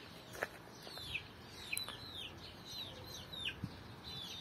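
Chicks peeping faintly: a run of short, high peeps, each falling in pitch, several a second, with a couple of soft knocks.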